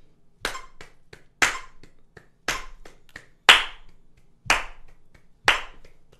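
Hands clapping triplets, three even claps to each beat of a metronome at 60 BPM, which beeps once a second. The clap on each beep is loudest and the two in between are fainter.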